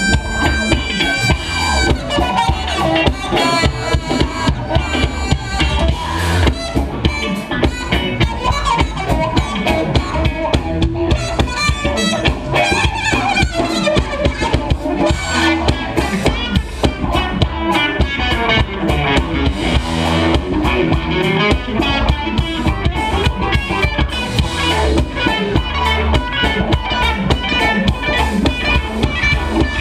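Live funk band in full swing, with a drum kit keeping a steady, busy beat under bass and electric guitar, loud and unbroken, heard from within the crowd in the club.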